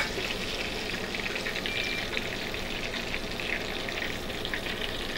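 Chicken nuggets deep-frying in hot oil: a steady sizzle with small pops. The sizzle has died down, the sign that the chicken is done.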